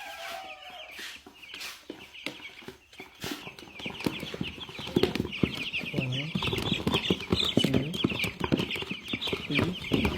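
A flock of young broiler chicks peeping together in a dense, constant chorus, growing fuller and louder about four seconds in. A few sharp knocks come in the first few seconds.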